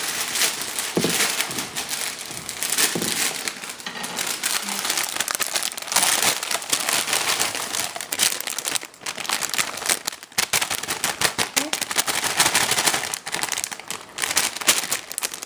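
Plastic bag crinkling as crushed frozen spinach is shaken out of it into a pot of hot oil, over a dense crackle of frying.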